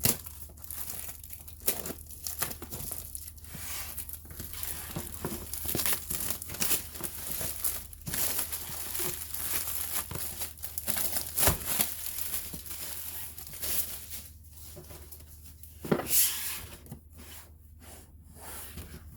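Box packaging being torn open and crinkled by hand: a continuous rustling with many short sharp crackles, and two louder knocks, about eleven and sixteen seconds in.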